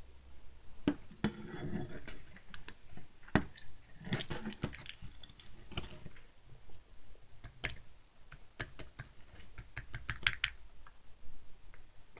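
Thin clear plastic candy mold clicking and crackling as it is pressed and flexed to pop out pressed ramune candies. The candies tap onto a plate in a quick, irregular run of clicks.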